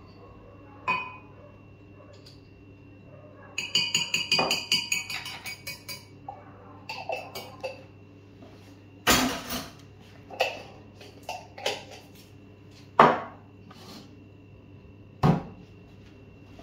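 Kitchen clatter of a spoon and jars being handled over a blender jar while ingredients go in: a run of rapid ringing clinks about four seconds in, then a few separate sharp knocks and taps, over a low steady hum.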